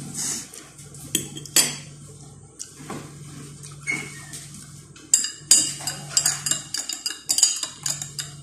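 Tableware clinking as a glass jar is handled: two sharp knocks in the first couple of seconds, then a quick run of clinks over the last three seconds.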